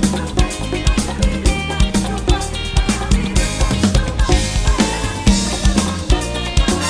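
Live Latin pop band playing an instrumental passage, with a drum kit beating a steady dance rhythm under brass and bass lines. The sound is a direct mixing-console feed, with no crowd noise in it.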